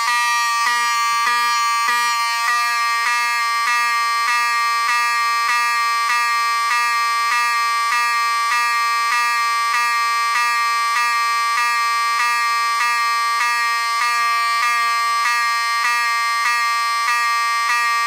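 Wheelock 7002T-24 electromechanical fire alarm horn/strobe sounding a loud, steady horn tone, broken by brief, regular skips. Each skip comes when the strobe flashes: the strobe is wired in series with the horn's coil and takes power from the horn when it discharges.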